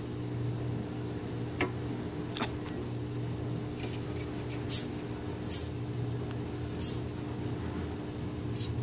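Steady low machine hum in a room, with a few short clicks and scratches scattered through it as a kitten claws and bats at the legs of a wooden TV tray.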